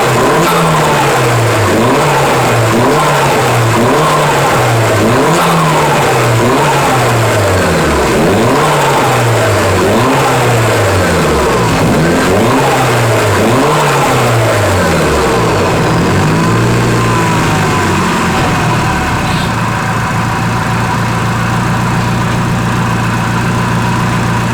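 Nissan Silvia S15 Spec R's SR20DET turbocharged four-cylinder, with an HKS turbo, no blow-off valve and a Blitz Nür Spec exhaust, blipped in quick revs about every second and a half. The turbo flutters on lift-off, with nothing venting the boost. About sixteen seconds in it settles to a steady idle.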